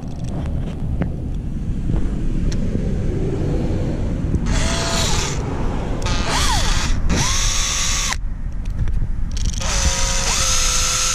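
Makita cordless drill whining in several short trigger pulls, starting about four seconds in, each spinning up and back down, as the bit bores into a hard plastic toy fish, over a steady low rumble.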